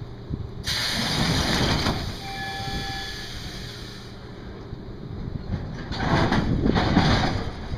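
ET2M electric train at a platform releasing compressed air: a sudden loud hiss about a second in as its pneumatic doors close, fading over a few seconds. A second burst of air hiss follows about six seconds in, over the train's low steady rumble.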